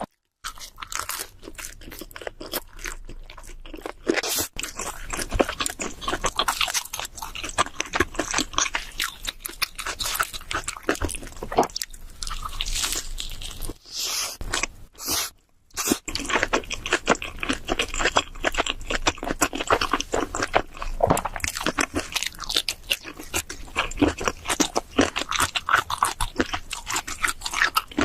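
Close-miked eating of cheese seafood pizza: dense, irregular crunching of the crust with chewing and biting, broken by two short silences around the middle.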